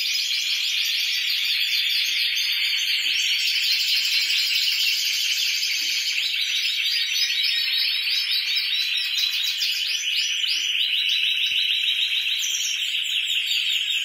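Several Spanish timbrado canaries singing at once without pause: continuous rolling trills of rapid, repeated notes.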